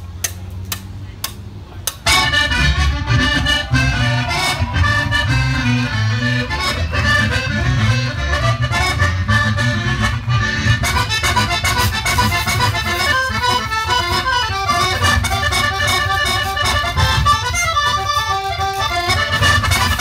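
Zydeco band playing live: accordion leading over electric guitar, drums and a rubboard (frottoir). After a quieter stretch of rhythmic clicks, the full band comes in loud about two seconds in.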